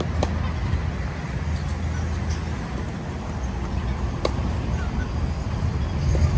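Tennis balls struck by rackets in a doubles rally: a sharp pop about a quarter second in and another about four seconds in, with fainter ticks between, over a steady low rumble.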